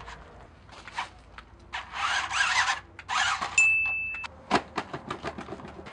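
RC cars driving through mud: two bursts of wheels churning and splashing, a short steady high-pitched beep a little past the middle, then a quick run of clicks and ticks.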